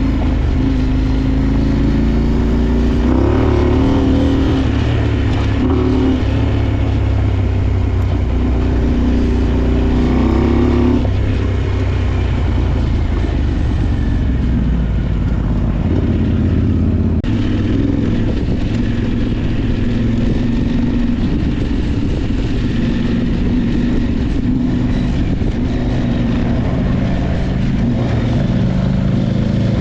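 Motorcycle engine running while riding, the revs rising about three seconds in and again about ten seconds in, then holding steadier.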